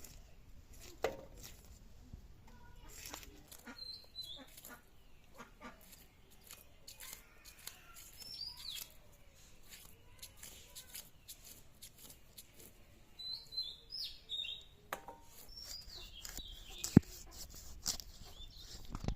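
Small birds chirping now and then, with scattered clicks and knocks, the loudest a single sharp knock near the end.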